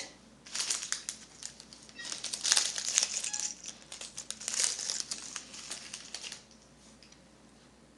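Plastic bag crinkling and rustling as it is handled, in irregular crackles, stopping about six and a half seconds in.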